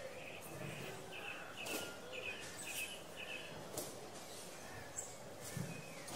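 Daytime town-square ambience soundscape laid over the picture: small birds chirping in short repeated phrases over a steady background hum, with a few sharp knocks scattered through it.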